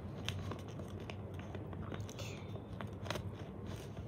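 Folded origami paper crinkling and crackling as it is handled and creased, a few short crisp crackles, the clearest about a third of a second in and just after three seconds, over a low steady hum.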